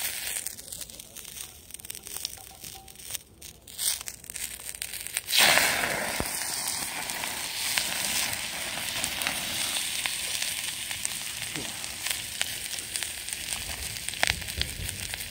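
Morel mushrooms frying in oil on a small iron griddle, sizzling and crackling. The sizzle is light and broken at first, then swells suddenly about five seconds in and holds steady, with fine pops through it.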